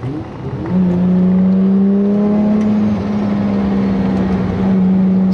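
Nissan Skyline R34 GT-R's 3.2-litre RB straight-six, heard from inside the cabin, pulling under load. Its note climbs in the first second, then holds steady, with a slight dip about halfway through.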